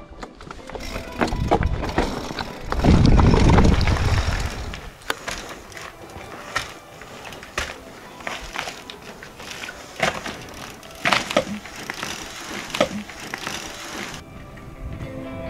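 Mountain bike riding down a rough, rocky trail: tyres crunching over stones and the bike clattering, with many sharp knocks and a heavy low rumble in the first few seconds. Music comes in near the end.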